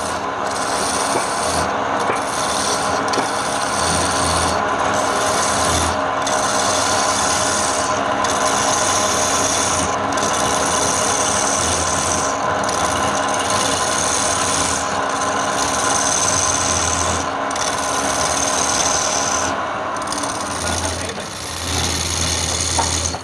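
Wood being shaped by abrasion: a continuous rough rasping and rubbing, with short breaks every second or two between strokes.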